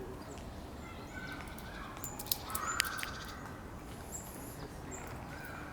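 A crow cawing three times, hoarse calls a couple of seconds apart, with faint high chirps of small birds. Two sharp clicks come between the first and second caws.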